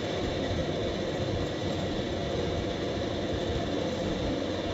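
Steady rushing background noise that keeps an even level, with no distinct knocks or clicks.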